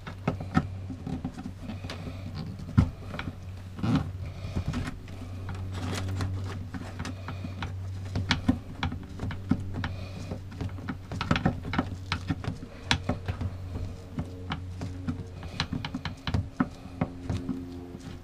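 Hands working on a water pump's hoses and wiring fittings, with irregular small clicks, taps and knocks over a steady low hum.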